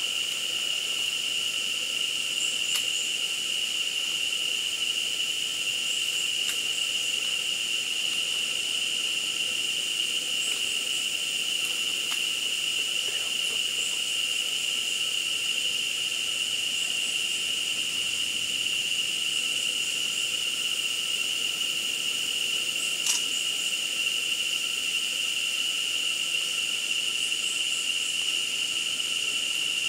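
Steady high-pitched drone of an insect chorus, unbroken, with a single sharp click about three quarters of the way through.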